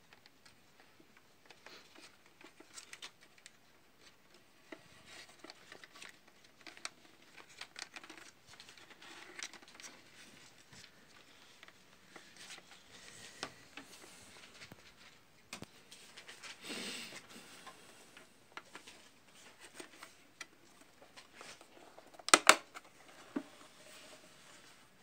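Hands and a small screwdriver working on the wiring terminals of an electric cake-maker: scattered light clicks and scrapes of tool, screws and plastic parts, a brief rustle about two-thirds through, and two sharp knocks near the end, the loudest sounds.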